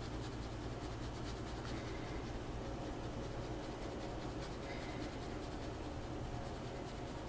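Faint scratchy rustle of black pepper being shaken over raw, seasoned chicken wings on a tray, over a steady low hum.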